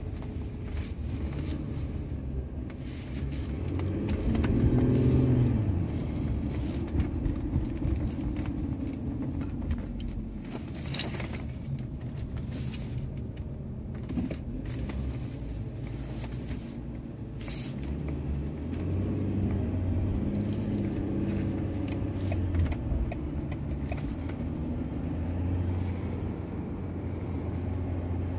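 Interior of a VW Phaeton on the move: steady low engine and road rumble in the cabin, with the engine note rising twice as the car speeds up. A few faint clicks sound now and then.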